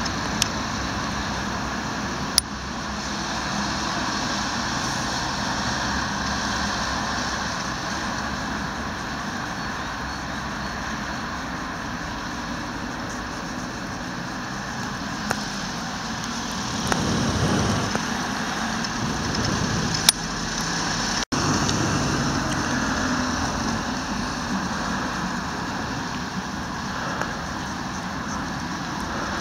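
Steady road-traffic noise, with a few brief sharp clicks.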